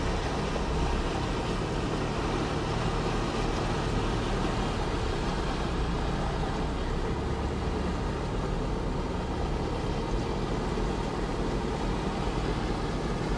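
A car driving through floodwater, heard from inside the cabin: steady engine and road noise with an even hiss, no distinct knocks or splashes standing out.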